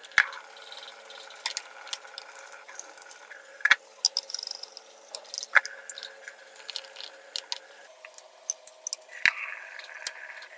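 A wet deodar-wood cutting board being handled and set down on a granite countertop: irregular knocks and taps of wood on stone, with water dripping from the board.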